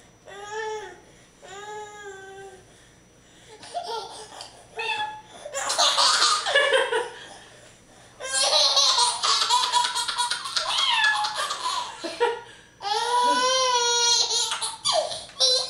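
A baby laughing hard: a few short chuckles, then long, loud bursts of belly laughter, each breaking into a rapid string of 'ha' pulses.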